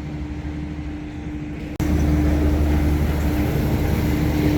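Steady mechanical rumble with a constant hum, typical of a vehicle or machinery in motion. Less than two seconds in it cuts abruptly to a louder, fuller rumble.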